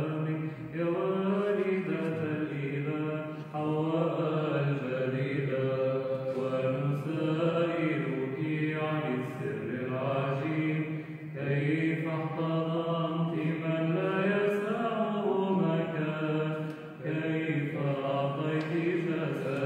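Byzantine Orthodox chant: a chanter sings a slow, ornamented hymn melody over a steady low held note (the ison drone).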